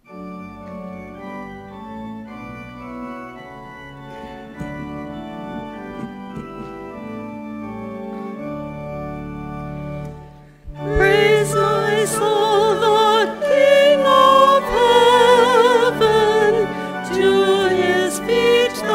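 Church organ playing the closing hymn, first an introduction of held chords; about eleven seconds in, a voice with a wide vibrato comes in and sings the hymn over the organ, much louder.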